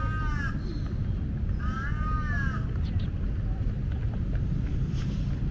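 Two drawn-out animal calls, each rising then falling in pitch, about two seconds apart, over a steady low rumble.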